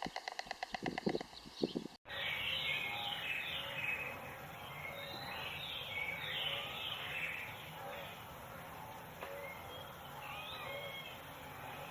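A rapid, even pulsing sound cuts off abruptly about two seconds in. It gives way to a heron nesting colony: many birds calling and chattering at once, short chirps and squawks overlapping over a steady outdoor background.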